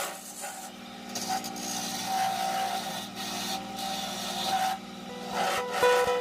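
Wood turning on a lathe: a rasping, rubbing sound of tool or sandpaper against the spinning wooden workpiece, over a steady low hum.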